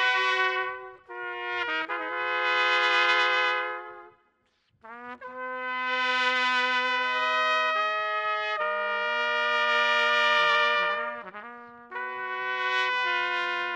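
Background music: a trumpet playing slow, long-held notes over a lower sustained note, with a short break about four and a half seconds in.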